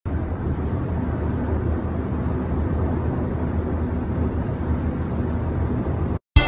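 Steady low rumble of road and engine noise inside a moving car's cabin, cutting off suddenly about six seconds in.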